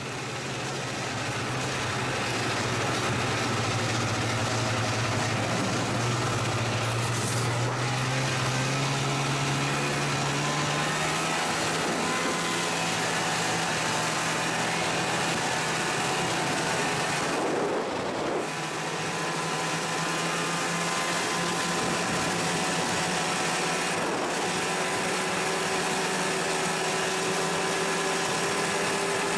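Polaris snowmobile's two-stroke engine running steadily under way, the engine note rising about ten seconds in and easing off briefly near eighteen seconds.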